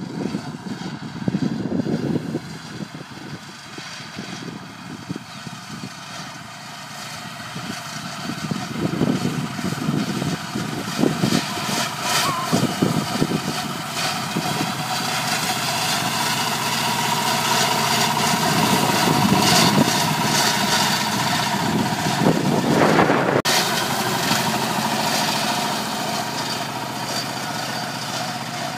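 Mini-tractor engine running steadily while it drives a KR-110M front-mounted rotary mower through standing grass, growing louder as the tractor comes closer and easing slightly near the end. Wind buffets the microphone at times in the first half.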